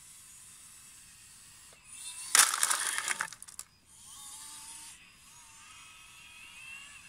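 A bucket-load of gravel tipped from a 3D-printed RC wheel loader's bucket rattles into an RC dump truck's bed, a loud burst lasting about a second, starting about two and a half seconds in. Afterwards the model's small electric motors and servos whine faintly as the bucket is worked back.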